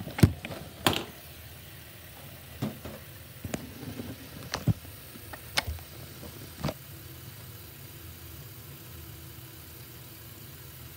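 Bathroom sink faucet running in a steady stream into the basin. Several sharp knocks and clicks of things being handled fall in the first seven seconds, the loudest right at the start.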